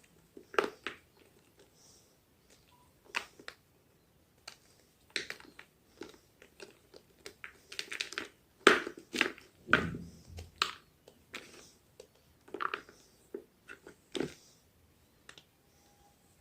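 Homemade gym chalk being crushed, crunching and crumbling in irregular sharp crackles with short pauses between them. The crunches come thickest and loudest about halfway through.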